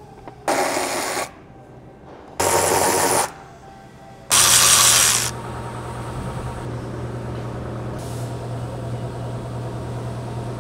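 An electric motor tool run in three short bursts under a second each, then a quieter steady running sound with a low hum.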